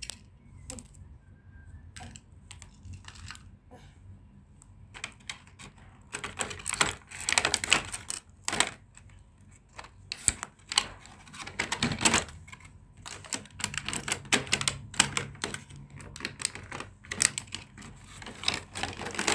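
Plastic toy train track pieces clicking and clacking as they are handled and fitted together, in irregular runs of sharp clicks, sparse at first and busier from about five seconds in.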